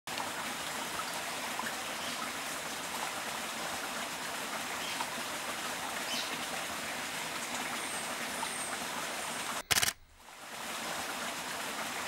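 Steady rushing of running water, like a forest stream, with three faint high chirps about eight seconds in. Just before ten seconds a brief loud burst of noise cuts in, then the water sound fades back up.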